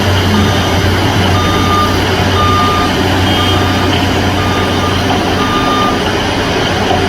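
Backup alarm of a reversing road-work vehicle beeping about once a second, each beep about half a second long, over the steady low drone of its heavy diesel engine.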